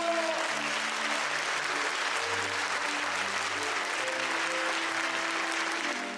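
Applause sound effect over soft background music, ending near the close.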